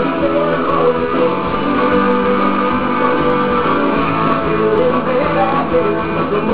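Music with guitar playing steadily throughout.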